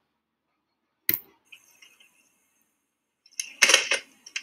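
A sharp click about a second in, then a quick cluster of plastic clicks and rattles near the end, as a Nerf toy blaster is handled and set down.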